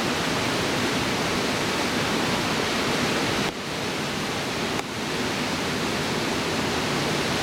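Steady rush of fast-flowing river water, an even hiss that drops suddenly in level about three and a half seconds in and comes back about a second later.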